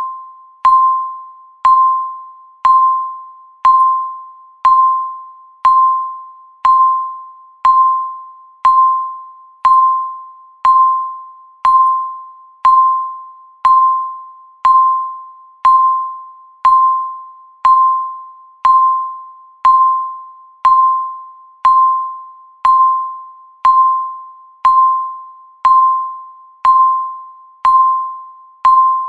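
Digital countdown timer beeping once a second: a short, mid-pitched electronic tone that starts sharply and fades away quickly, repeating at an even pace.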